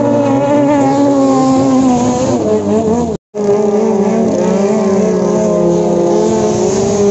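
Racing longtail boat engines running flat out as the boats speed past. The engine note wavers and dips slightly around two and a half seconds in, cuts out for an instant just after three seconds, then returns as a steady high-revving drone.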